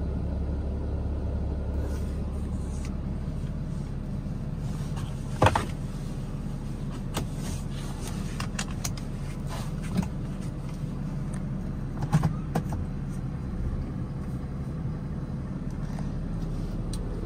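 Cummins diesel engine of a 2016 Ram 5500 idling steadily, heard from inside the cab as a low hum. A few sharp clicks or knocks sound over it, the loudest about five seconds in.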